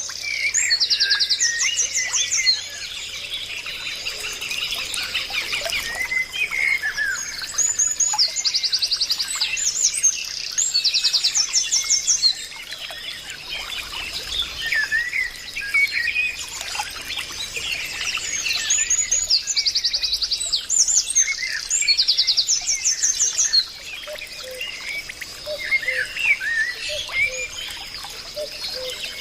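Many small birds chirping and calling together, with a rapid high trill that comes back several times among the shorter chirps.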